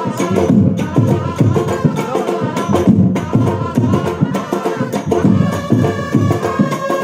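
Brass band playing live: drums beat a steady rhythm under the horns, and from about five seconds in the horns hold long sustained notes.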